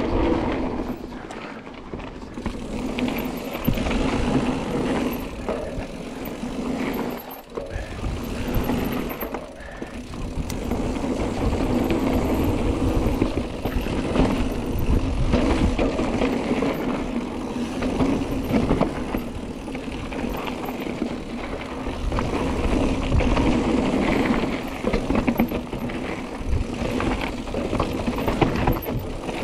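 Mountain bike descending a dirt downhill trail, heard from the bike: tyres rolling and skidding over the ground with constant rattles and knocks from the bike. The noise rises and falls with the terrain, easing off briefly about seven seconds in.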